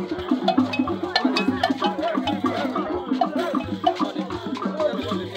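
Percussion music: a repeating pattern of low pitched drum strokes with wood-block clicks and rattles.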